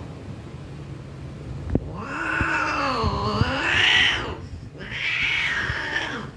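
Female Persian cat in heat yowling twice while mounted by the tom. The first long cry dips and then rises in pitch, and the second follows after a short gap. This is the mating cry a queen gives as the mating ends and she breaks away.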